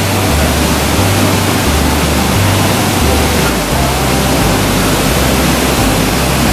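Loud, steady rush of whitewater pouring down a rock chute into a stream pool.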